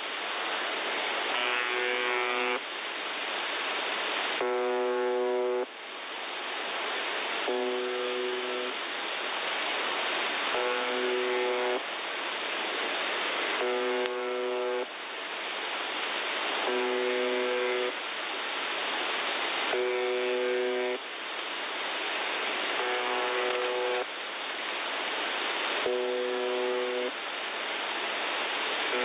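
Shortwave broadcast from UVB-76, 'The Buzzer', on 4625 kHz received in upper sideband. A pitched buzz tone about a second long repeats roughly every two and a half to three seconds over steady radio static.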